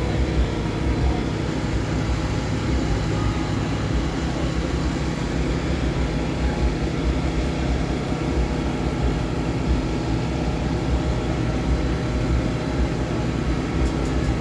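Steady, even drone of an engine running at a constant speed, with no revving.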